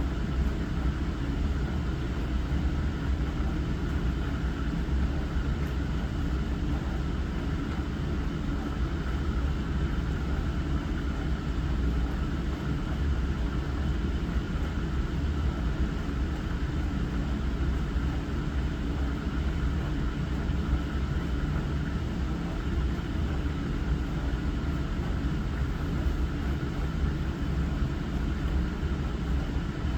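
Compact Hava glass-front dishwasher running its wash cycle: a steady low hum of the pump with the rushing of water spraying inside, unchanging throughout.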